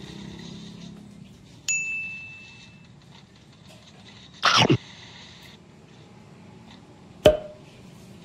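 Eating sounds: a metal spoon clinks against the plate with a clear ring that dies away over about a second, a loud short burst of noise comes in the middle, and a sharp knock sounds near the end.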